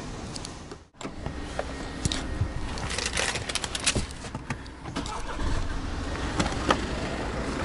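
Car engine running with a steady low rumble. It breaks off suddenly about a second in, then comes back under a quick run of clicks and knocks in the middle.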